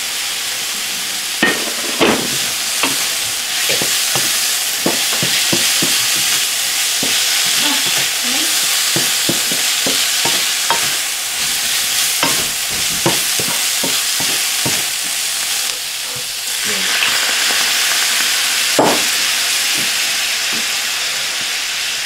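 Beef and vegetable stir-fry sizzling in a hot pan, stirred with a wooden spatula that clicks and knocks against the pan many times through the first two-thirds. The sizzle dips briefly, then returns, with one more knock near the end.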